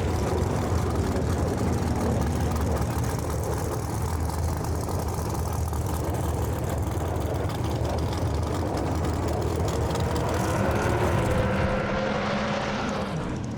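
Drag race car engines running steadily, rising slightly in pitch near the end.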